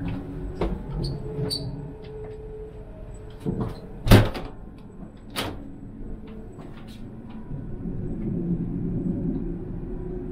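Toilet door of an ICE train washroom being handled, shut and latched: small clicks and rattles, then two loud knocks about four and five and a half seconds in, over the low rumble of the moving train.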